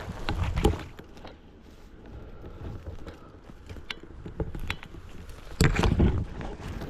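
Rustling and crackling in dry leaf litter and undergrowth, with small twig snaps, as someone moves through the woodland on foot; two louder bursts of trampling come about half a second in and again near the end.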